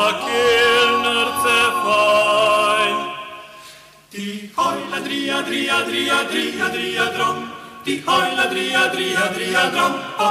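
A vocal octet singing a Slovenian folk song a cappella in several-part harmony. One phrase fades out about four seconds in, a new one starts half a second later, and there is a short break near eight seconds.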